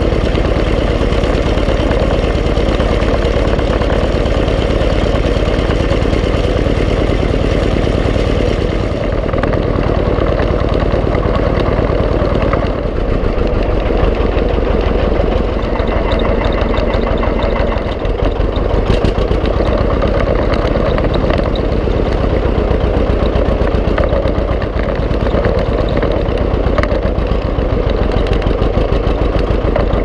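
John Deere 720 two-cylinder tractor engine running steadily while the tractor is driven, with a rapid, even exhaust beat. The tone shifts slightly about nine seconds in.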